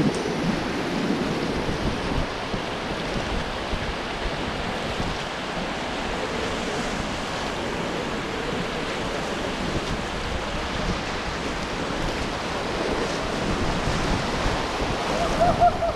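Steady rush of whitewater river rapids around an inflatable raft.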